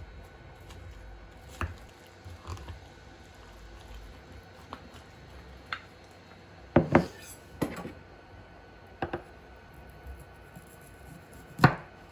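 Scattered light knocks and clinks of objects being handled and set down, about eight in all. The strongest are a quick double knock about seven seconds in and a single sharper knock near the end.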